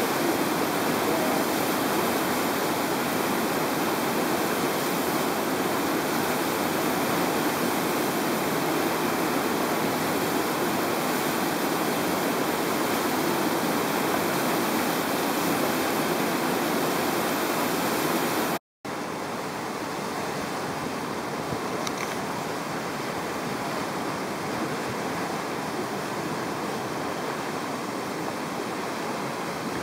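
River whitewater rushing steadily, an even noise of churning rapids. About two-thirds of the way through the sound cuts out for an instant and comes back slightly quieter.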